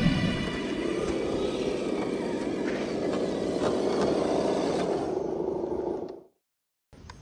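Traxxas TRX-4 radio-controlled crawler driving over dirt and grass: a steady running noise from its motor and drivetrain. It fades out about six seconds in, leaving a short gap of silence.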